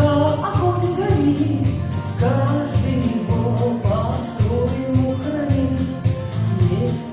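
Music: a song with a gliding melody over a steady beat.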